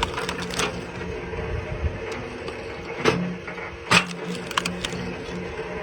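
Axe blows striking and splitting aspen wood: sharp cracking hits, the loudest two about three and four seconds in, with a few lighter knocks between. A steady low hum runs underneath.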